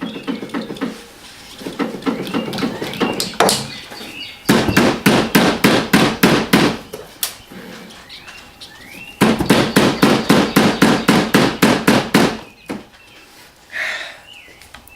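Rapid repeated tapping strikes, about six a second, in two runs of about three seconds each, with quieter knocks and handling before them.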